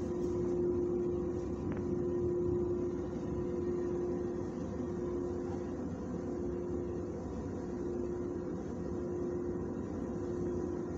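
Steady mechanical hum with a constant mid-pitched whine, from a building's ventilation fan behind a louvered wall vent.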